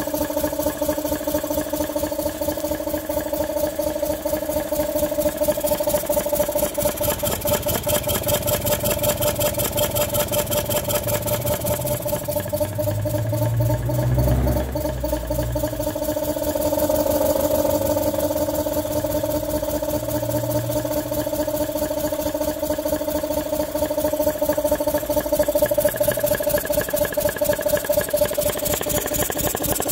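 A Mini's engine running with a steady whine over rapid, even firing pulses. About halfway through, the whine fades for a few seconds as a deeper surge rises, then it settles back. It is a car that will not run right.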